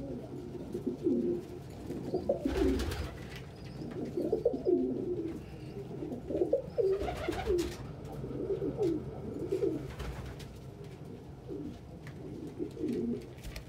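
Domestic pigeons cooing over and over, with short low curving coos one after another. A few brief rustles come in between, about two and a half, seven and ten seconds in.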